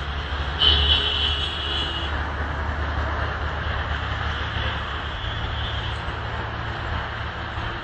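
Steady low rumble of a vehicle running, with a thin high whine that comes in about half a second in and fades after about two seconds.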